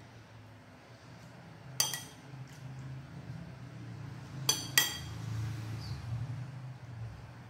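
Metal spoon clinking against a glass serving bowl, three short ringing clinks: one about two seconds in and two in quick succession near the middle.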